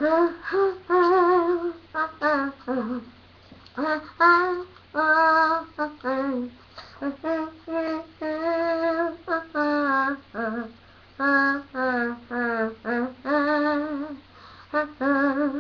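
A single voice singing unaccompanied in a fairly high register, in short phrases with held notes that waver in pitch.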